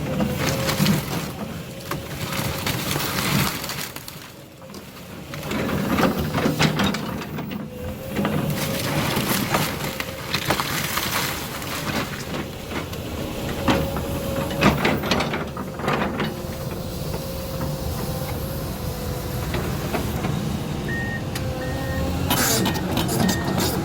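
Heavy demolition machinery tearing down a house: a steady engine hum under repeated cracking and crashing of breaking timber. Short regular beeps sound near the end.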